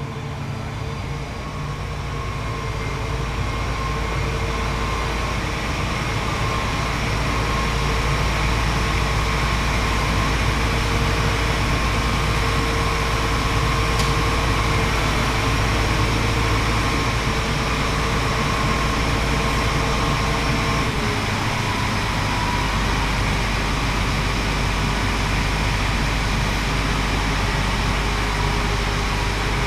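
Large diesel engine running steadily at close range, a low rumble with a steady whine over it that drops slightly in pitch about two-thirds of the way through.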